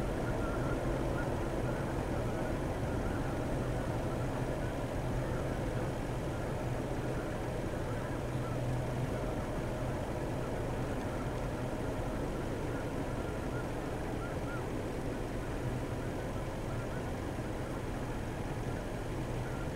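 Steady low hum of an idling vehicle engine, with faint scattered calls from a flock of snow geese in flight over it.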